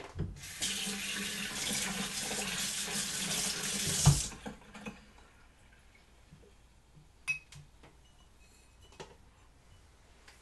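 Kitchen faucet running into a sink for about four seconds, stopping with a sharp knock; a few light clicks follow.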